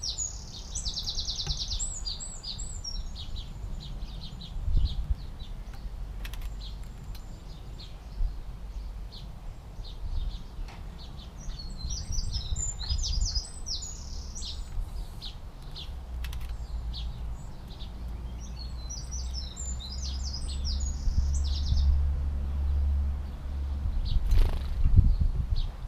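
Garden songbird singing three quick, high warbling phrases, near the start, about halfway and about three quarters through, with scattered short chirps between. A steady low rumble runs underneath and grows louder near the end.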